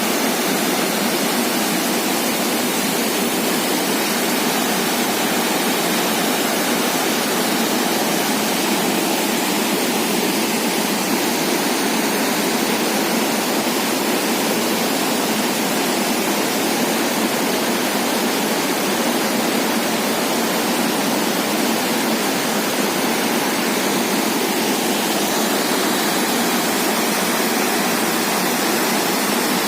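Waterfall and fast-flowing river water rushing steadily and loudly, the stream running high after rain.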